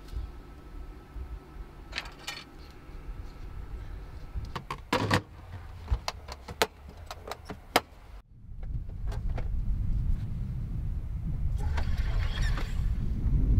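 Canvas awning sidewall being handled and zipped up: scattered rustles and clicks with a couple of short zip pulls. About eight seconds in this cuts off suddenly and gives way to a steady low rushing noise with hiss.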